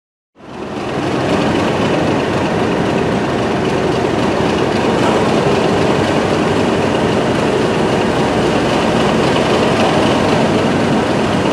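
DRS Class 37 diesel locomotive's English Electric V12 engine running steadily as it stands in the station. It comes in about half a second in and holds at an even level.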